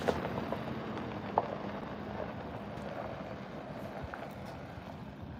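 Faint outdoor background noise with a low, steady hum, broken by two small clicks, one at the very start and a sharper one about a second and a half later.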